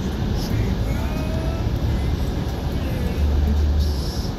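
Steady road noise inside a car driving through a rainstorm: a deep rumble with a hiss over it, the rumble swelling for about a second near the end.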